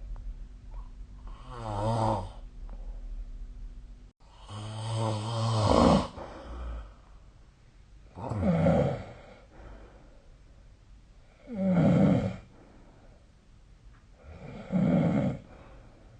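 A sleeping person snoring: five snores about three seconds apart, each about a second long, the second the longest and loudest. A low steady hum cuts off abruptly about four seconds in.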